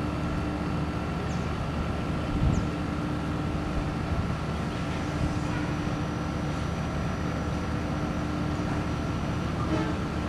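Steady diesel drone of a passenger train standing idle at a station: a low rumble with a constant hum over it, and a brief knock about two and a half seconds in.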